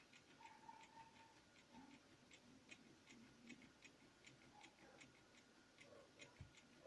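Faint, slightly irregular clicking, about two to three clicks a second, from the crankshaft of a Piaggio Leader 210 cc scooter engine being worked by hand. The owner takes it for a lower crankshaft bearing whose cage is breaking up.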